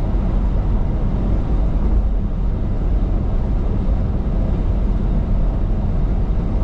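Steady road and engine noise of a car driving along at speed: a constant low rumble with a hiss of tyres above it and no distinct events.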